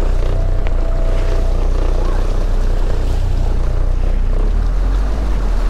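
Outboard motor running steadily at trolling speed, a constant low drone under the rush of water along the hull.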